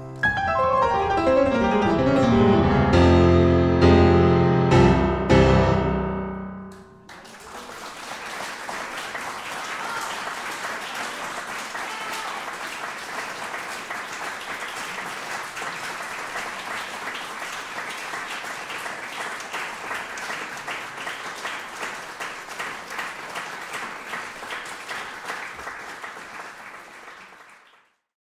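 Grand piano playing the final loud chords of a classical piece. About a second after the last chord, an audience applauds steadily for some twenty seconds, and the applause fades out near the end.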